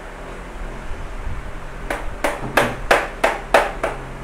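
Sharp metallic taps of a small hammer on the aluminium radiator's header-plate tabs, crimping them over a new plastic top tank. The taps start about two seconds in and go at about three a second.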